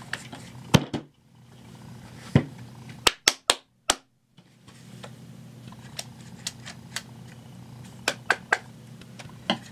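About a dozen sharp clicks and knocks, scattered and uneven, over a low steady room hum while a sound-activated animatronic toy bear is handled and tested. The bear makes no sound of its own in response: it is not getting power.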